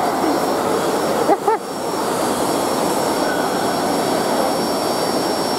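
Steady rushing roar of dog-grooming blow dryers, with a thin steady whine above it. A short high call, voice- or whine-like, rises and falls about a second and a half in.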